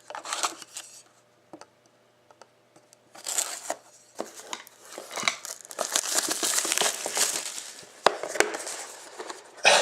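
Plastic wrapping on a box of hockey cards being torn and crinkled open: a short crinkle, a quiet pause with a few faint ticks, then steady crinkling and tearing from about three seconds in, with two sharp clicks shortly after eight seconds.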